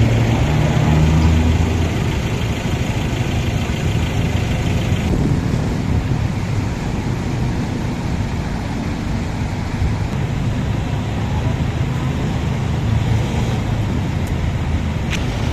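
Road traffic: motor vehicles running, a steady mix of engine rumble and road hiss, the higher hiss thinning about five seconds in.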